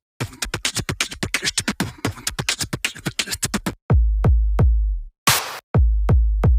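Electronic background music with a drum-machine beat. A fast run of drum hits leads into heavy bass-drum hits with deep booming bass about four seconds in.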